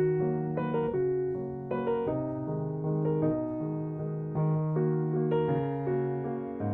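Piano music: a slow run of sustained chords over a low bass line, changing about every half second.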